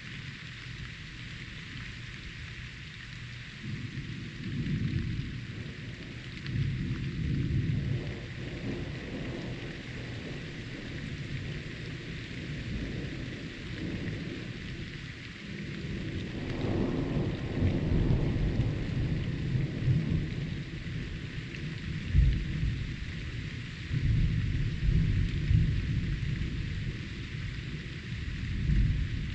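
Steady heavy rain hissing, with thunder rolling through it: low rumbles start a few seconds in and swell and fade in waves, with a sharper clap a little past two-thirds of the way through.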